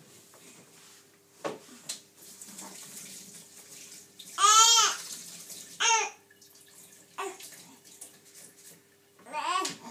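A young baby fussing in short, high wails, the loudest about halfway through, while a kitchen tap runs into the sink, with a few small clicks and knocks.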